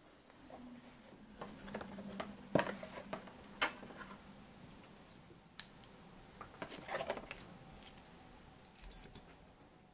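Cardboard and paper being handled: a retail box's flap and inner insert pulled open and a paper manual slid out, giving short rustles, scrapes and sharp clicks, in two clusters about two and seven seconds in.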